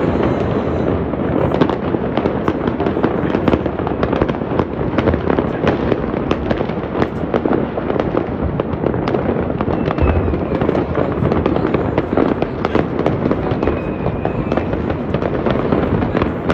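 Fireworks and firecrackers going off all over a city at once: a dense, unbroken crackle of bangs and pops.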